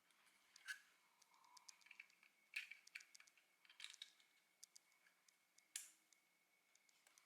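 Faint, scattered clicks and taps of small 3D-printed plastic parts being handled, with a few sharper clicks among them.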